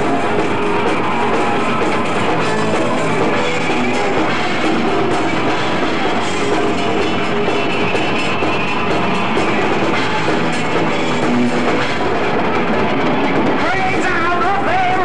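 Rock band playing live: electric guitar and drum kit in a loud, steady instrumental passage.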